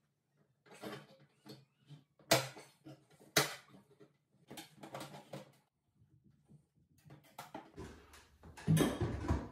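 Fluorescent light fixture being dismantled by hand: scattered scraping and rattling of its sheet-metal housing and parts, two sharp clicks about a second apart, and louder knocking and rattling near the end.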